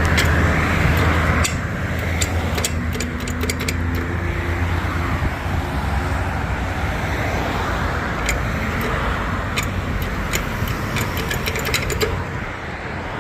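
Road traffic on a busy street: vehicle engines and tyres making a steady rumble, heaviest for the first second or so, with scattered light clicks and taps.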